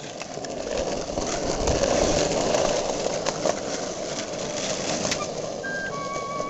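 Skateboard wheels rolling over rough asphalt: a steady rumble that swells in the first few seconds, with a few sharp clicks.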